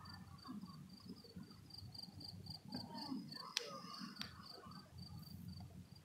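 A cricket chirping steadily, a high pulse repeating about four or five times a second. Underneath is low rustling, with two sharp clicks about three and a half and four seconds in.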